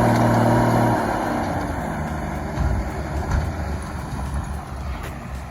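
Army truck's multifuel diesel engine working hard, an M35A2, as it pushes through deep snow. Its strong steady note falls away after about a second into a lower, uneven rumble with a couple of knocks.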